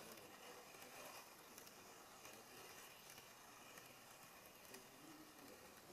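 Near silence: a faint, even hiss with a few faint clicks scattered through it.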